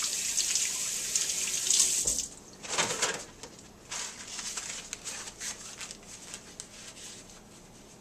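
Tap water running into a stainless steel sink as hands are washed, shut off about two seconds in. Then paper towels rustle and crackle as the hands are dried.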